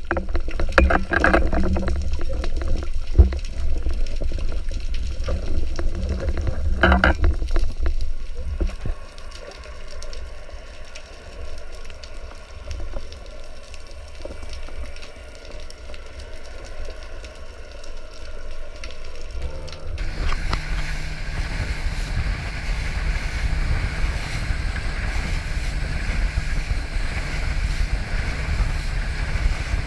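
Muffled water noise picked up by a diving camera in its housing: low rumble with a few knocks for the first several seconds, quieter for a while. About two-thirds of the way through it changes suddenly to a steadier, brighter hiss of water and wind.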